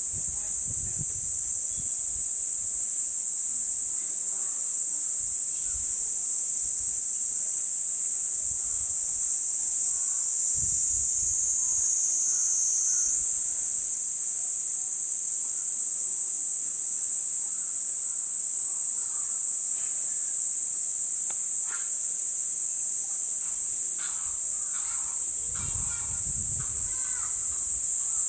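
Chorus of summer cicadas droning steadily at a high pitch, with low wind buffets on the microphone now and then.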